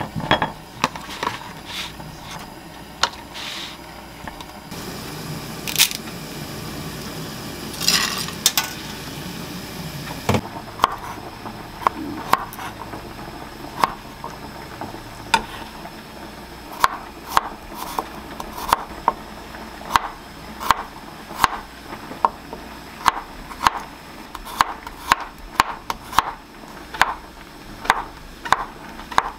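Chef's knife slicing garlic cloves and then mini king oyster mushrooms on a wooden cutting board, the blade tapping the wood about one and a half times a second. Before that, a few clicks and rustling as the ingredients are set out; the slicing starts about ten seconds in.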